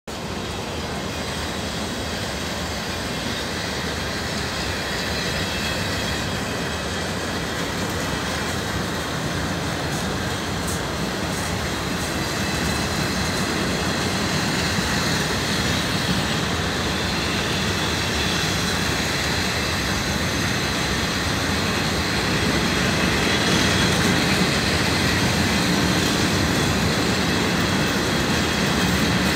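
Freight train of flat wagons loaded with long rails rolling slowly past: a steady rolling rumble that grows gradually louder, with a faint high squeal from the wheels.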